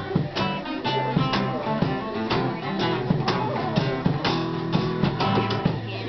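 Live acoustic-guitar music: two acoustic guitars strumming and picking, with drumstick hits on a cymbal and a box drum keeping a beat of about two strikes a second.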